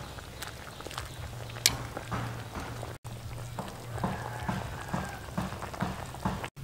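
Pot of stew simmering: small irregular bubbling pops and clicks over a steady low hum.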